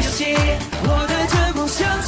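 Chinese dance-pop track with male group vocals over deep bass kicks that slide down in pitch about twice a second.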